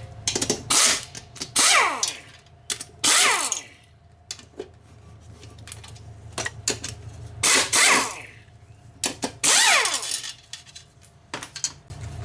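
Pneumatic impact wrench run in about five short bursts, each a whirr whose pitch falls as it winds down, as it backs out the bolts holding a plate on a lawn mower engine. Small clicks and knocks come between the bursts.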